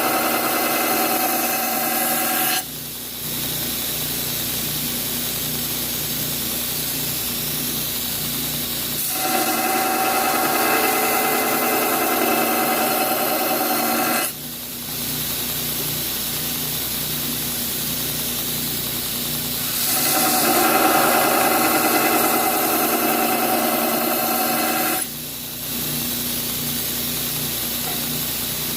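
Power grinder running steadily while grinding the edge bevel on a forged steel blade. Three stretches of louder grinding with a ringing whine come about every ten seconds, each ending in a brief drop in level.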